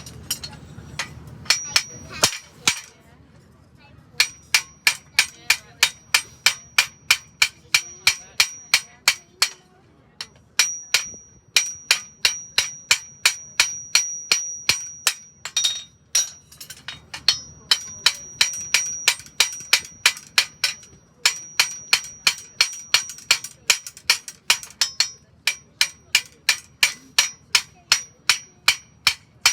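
Blacksmith's hammer striking a horseshoe on the anvil, about two blows a second in runs broken by short pauses, each blow with a high metallic ring.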